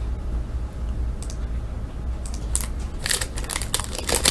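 Crinkling and tearing of a trading-card pack's foil wrapper as it is opened by hand, in short irregular bursts that come closer together in the second half.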